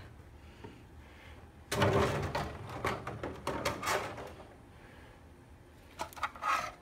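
Clear plastic packaging rustling and crinkling as it is handled, as an action figure is worked out of its bag. The noise comes in a burst about two seconds in that lasts a couple of seconds, and returns briefly near the end.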